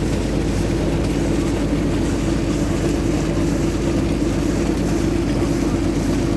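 An engine running steadily at constant speed, a continuous drone with a strong low hum, as a borehole is tested.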